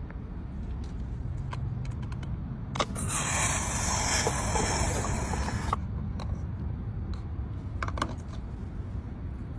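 Car fuel-filler cap being handled and unscrewed with a few clicks, then a loud rush of air hissing for about three seconds and cutting off suddenly: pressure escaping from the sealed fuel tank as it equalises. A low rumble runs underneath.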